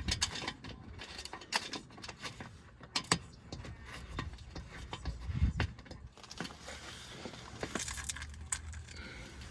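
Irregular small clicks, taps and light rattles of metal fasteners and a plastic underbody cover being handled as the bolts are threaded in by hand.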